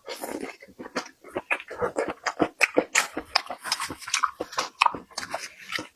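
Close-miked chewing and biting while eating braised prawns: a quick, irregular run of wet clicks and smacks from the mouth.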